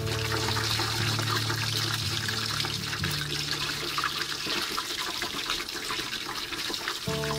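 Hot oil sizzling and crackling steadily around a slab of pork belly deep-frying skin-down in a wok, as the skin blisters and puffs into crackling. Background music plays under it for the first few seconds and returns near the end.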